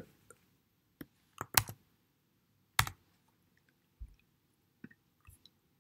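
Computer keyboard being typed on: a handful of separate, irregularly spaced key clicks, the loudest about a second and a half in and near three seconds, with fainter ones later.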